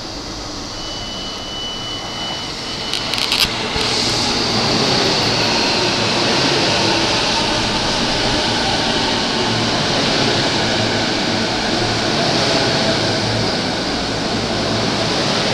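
E233-series electric commuter train running into the platform and slowing, its wheel and motor noise swelling over the first few seconds, with a few sharp clicks about three seconds in. A high whine falls slowly in pitch as the train slows.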